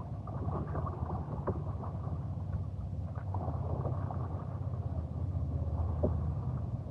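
Water around a kayak on the move: small splashes and drips over a steady low rumble.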